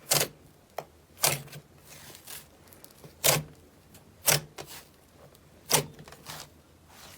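Slime being pressed and poked by hand, giving a series of sharp wet pops and clicks roughly once a second, with fainter sticky crackles between them.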